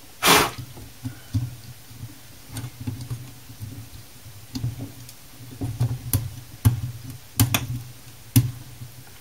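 Needle-nose pliers and fingers picking and scraping hardened tan glue off a power supply's circuit board and components: a short noisy scrape right at the start, then scattered sharp clicks and taps that come thicker in the second half.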